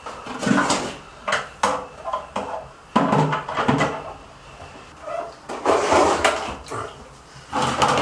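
Hard plastic knocks and clunks of an aquarium external canister filter's head being handled and fitted back onto its canister during reassembly, several separate knocks over the few seconds.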